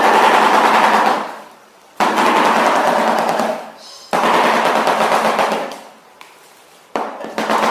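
Shoebill clattering its bill: rapid clattering in bouts that start abruptly and fade out over about a second and a half, with a new bout starting roughly every two to three seconds.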